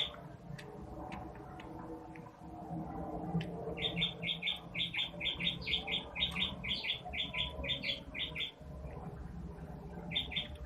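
A small bird chirping in the background: quick, evenly spaced high chirps, several a second, starting about four seconds in and stopping about four seconds later, then a short run again near the end. Soft clicks from hand-eating come early on.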